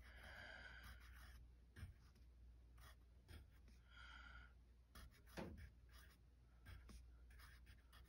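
Faint scratching of a wooden pencil writing on a lined paper pad, in short irregular strokes, one a little louder about five seconds in.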